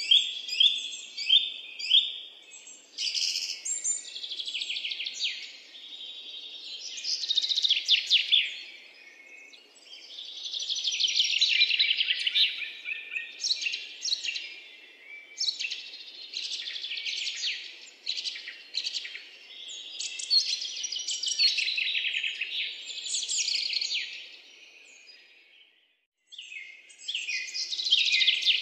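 Birds singing: rapid high chirps and trills in phrases of a second or two, with a short break near the end.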